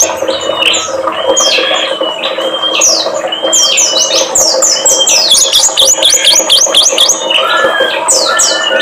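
Small songbirds chirping and calling in a busy chorus: quick runs of high, falling notes overlapping one another, over a steady low drone.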